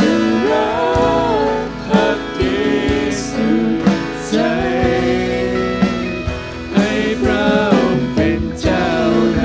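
A live church worship band performing a worship song: several voices singing in Thai over acoustic and electric guitars and keyboard, with scattered percussive hits.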